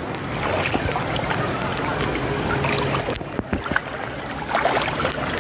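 Water splashing and flowing in a shallow spring-fed stream, with scattered sharper splashes.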